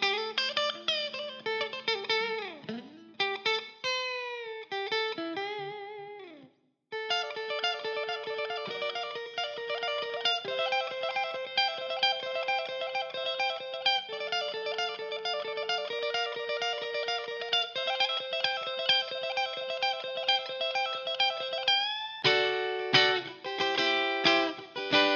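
Donner Hush X electric travel guitar on its neck pickup, played through a Donner Arena 2000 amp modeler: bent and sliding notes for the first few seconds, a brief pause, then a long run of fast repeated picked notes, ending on fuller chords near the end.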